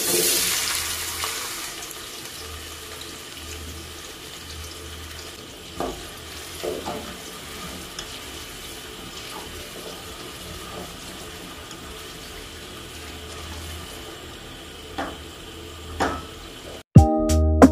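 Chopped onions dropped into hot oil in an aluminium pot: a loud burst of sizzling that settles into a steady sizzle, with a few knocks of a spatula against the pot as they are stirred. Music starts about a second before the end.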